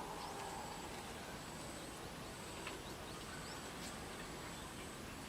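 Faint forest ambience: a steady high-pitched insect whine over a low hiss, with a few short bird chirps scattered through and a faint tick about four seconds in.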